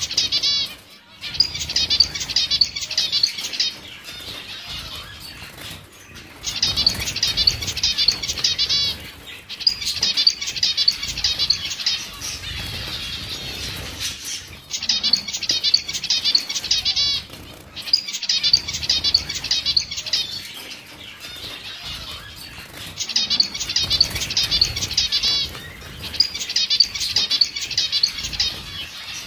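A flock of white zebra finches calling in dense bouts of fast, high chirps a few seconds long, broken by short quieter gaps, with wing fluttering as birds fly about the aviary.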